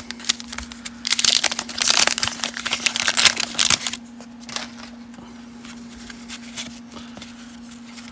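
Wax paper wrapper of a 1989 Fleer baseball card pack crinkling and tearing as it is ripped open by hand, loudest in the first half. After about four seconds it drops to faint rustles and ticks as the cards are slid out and handled.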